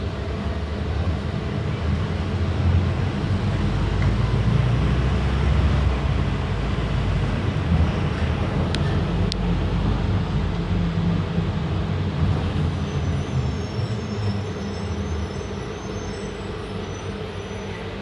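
Diesel engine of a Volkswagen 9-160 OD microbus running, a low rumble that builds over the first few seconds and then slowly fades. Two sharp clicks near the middle.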